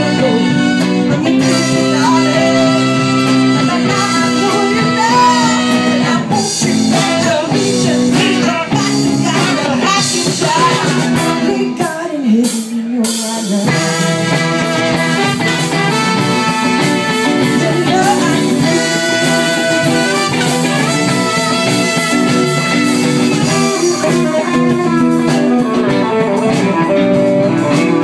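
Live band playing: a woman singing lead over electric guitars, bass and saxophones. About halfway through the band drops to a brief break, the bass falling out for a second or so, then the full band comes back in.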